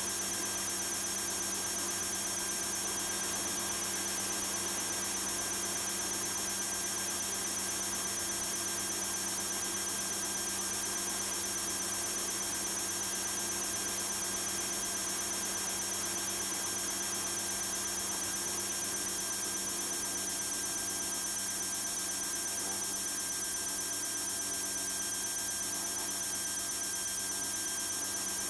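A steady high whine and hum over a layer of hiss, held without change throughout, like a turbine engine or an electrical whine on the audio feed.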